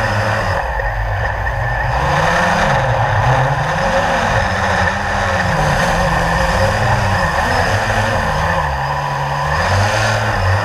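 Quadcopter drone's electric motors and propellers, picked up close by the camera on the drone: a steady buzzing whine whose pitch rises and falls every second or so as the throttle changes.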